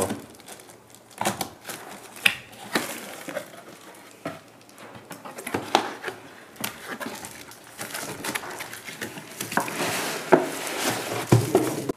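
Handling noises from unpacking a cardboard box by hand: scattered rustles, scrapes and knocks as the flaps are opened, with a few harder knocks near the end as a hard plastic tool case is lifted out.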